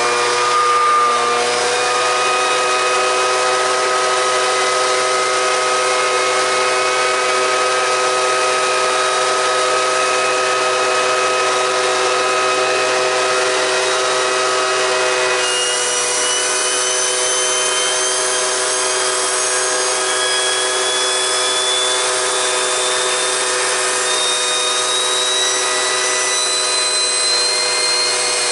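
Turbocharger on a wood-fired barrel stove (a homemade turbo stove) running at speed with a steady whine of several tones, settling in pitch within the first second. From about halfway through, a higher whistle joins and slowly climbs in pitch.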